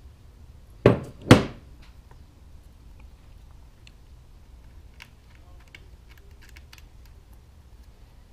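Two loud hard thunks about half a second apart, about a second in, then a few faint clicks: hands handling the Lowrance Elite fish finder while its memory card is swapped.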